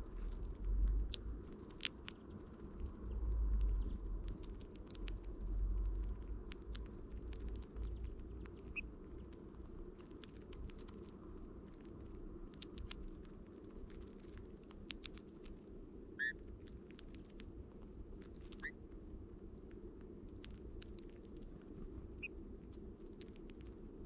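Eurasian bullfinches pecking and husking sunflower seeds on snow: many small clicks and crunches. There are low rumbles in the first six seconds and four short whistled bird calls in the second half.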